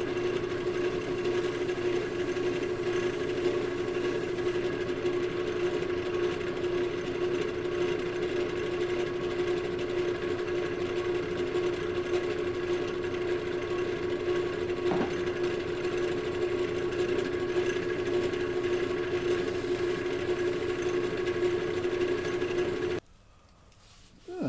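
Wood lathe running steadily with a hum as a turned maul spins during finishing, then cutting off suddenly near the end, followed by a brief click.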